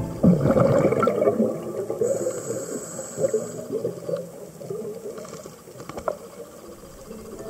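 Underwater bubbling and gurgling, typical of a scuba diver's exhaled bubbles picked up by the camera. It is loudest just after the start and fades away over the following seconds. A single sharp click comes about six seconds in.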